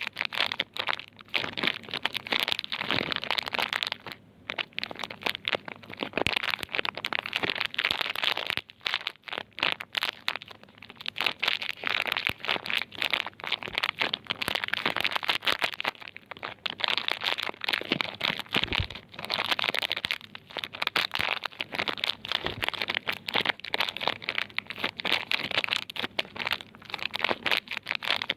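Soap wrappers being crinkled and handled: dense runs of small crackles that break off briefly three times.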